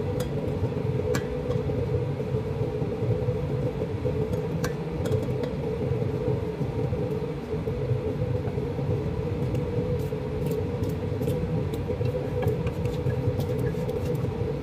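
Steady low rumble and hum, with a few light knocks and scrapes of a wooden spoon stirring chicken curry in a stainless-steel pot.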